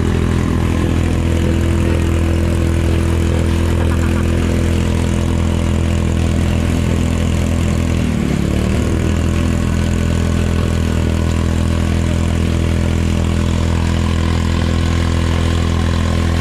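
Fire-pump engine running steadily under load, driving water through a hose, with the hiss of the water jet. About halfway through, the engine note wavers briefly and then settles.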